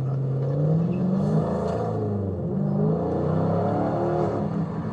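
Dodge Scat Pack's 6.4-litre HEMI V8 running under light throttle, its engine note rising and falling as the revs change.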